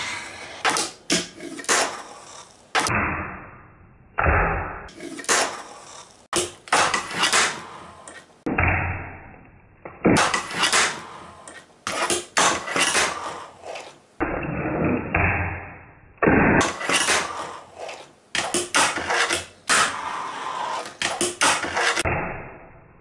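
Fingerboard tricks on a desk rail and a wooden ledge: the small board's wheels roll across the wood, and the board clacks and snaps sharply as it pops, lands and hits the obstacles, many times over. The sound changes abruptly several times where short clips are cut together.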